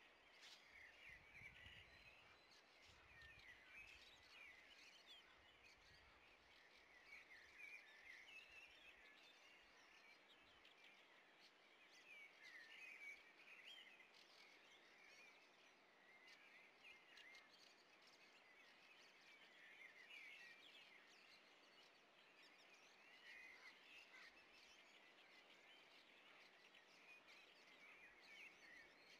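Faint, distant songbirds chirping and warbling over a steady outdoor hiss.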